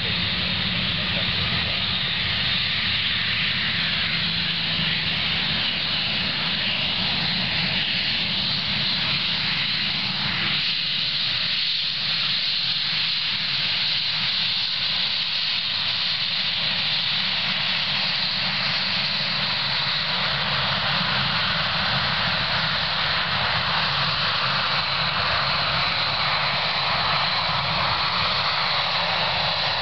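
Airbus A320's twin jet engines running at low thrust as the airliner taxis along the runway after landing: a steady jet whine and rush with a low rumble beneath, brightening somewhat in the second half as the aircraft draws nearer.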